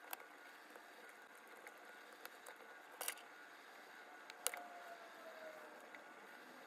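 Small metal clicks of watchmaker's tools against the parts of an Omega cal.1012 movement during disassembly: a click near the start, a double click about three seconds in, and a sharper one about four and a half seconds in that leaves a brief ringing note sinking slightly in pitch.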